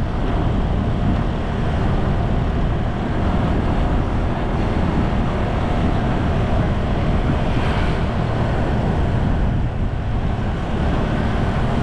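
Steady wind rush buffeting the microphone, mixed with road and engine noise from the moving vehicle carrying the camera.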